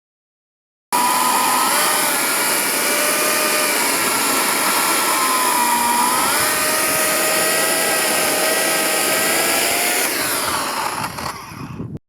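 Chainsaw engine running at high revs while cutting firewood, its pitch sagging and recovering under load, then falling away near the end. It starts and stops abruptly.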